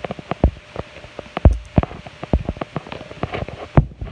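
Irregular clicks and light knocks, several a second, with heavier thumps about one and a half seconds and nearly four seconds in: objects being handled and tapped on a table.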